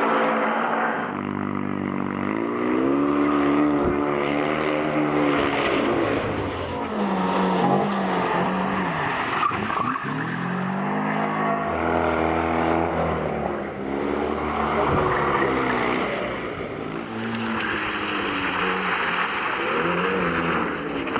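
Rally cars' engines revving hard on a tight stage, their pitch rising and falling again and again as the drivers accelerate, lift off and change gear, with tyre skid noise.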